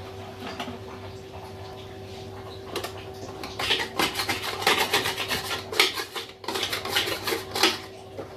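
Kitchen clatter: dishes and metal utensils being handled and scraped in quick, repeated strokes, starting about three seconds in, over a steady hum.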